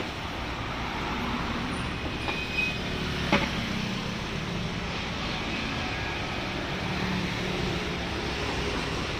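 Steady road-traffic noise, with a sharp click about three seconds in.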